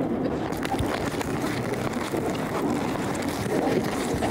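Outdoor city street ambience: a steady rush of wind on the microphone over passing traffic noise.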